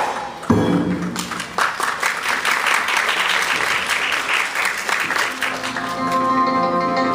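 Audience applauding for several seconds, opened by two short percussion strokes as the music breaks off. The water-puppet music comes back in near the end with sustained held notes.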